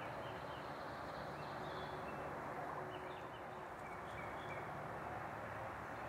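Several faint, short, high bird calls scattered over a steady background hiss in woodland.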